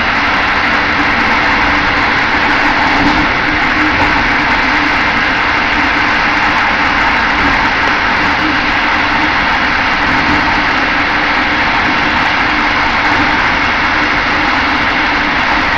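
Steady running noise of a moving passenger train heard inside its last carriage: wheels rolling on the rails, with a steady low hum.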